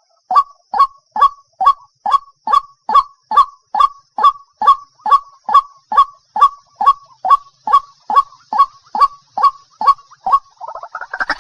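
Waterhen calling a long, even series of short, sharp notes, each dropping slightly in pitch, about two or three a second. Just before the end a different, harsher call with several tones sets in.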